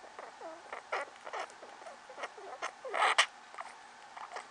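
Hairless pet rats' laboured breathing: crackling clicks and short squeaky whistles, with a louder noisy burst about three seconds in. These are the respiratory sounds of the infection the vet diagnosed, with possible pneumonia.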